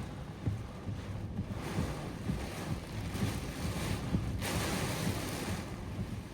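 Severe-thunderstorm wind gusting and buffeting the microphone, with a rushing hiss that surges several times. The strongest surge comes about four and a half seconds in and lasts roughly a second.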